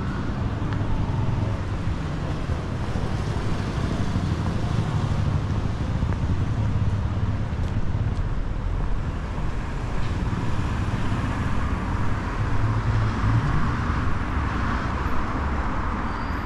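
City street traffic noise: cars and engines running and passing, with wind rumbling on the microphone.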